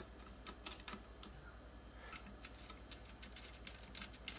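Light, irregular clicks and taps of a steel washer, bolt and screwdriver being handled against a metal bracket, coming more often in the second half, over a faint steady low hum.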